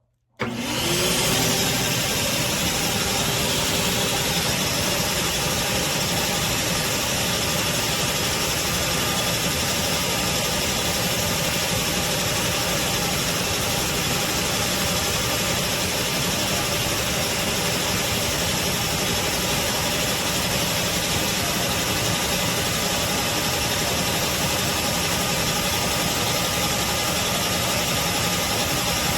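Craftsman CMXEVBE17595 16-gallon wet/dry shop vac switched on: its motor spins up within the first second, then runs steadily with a loud rush of air and a steady whine.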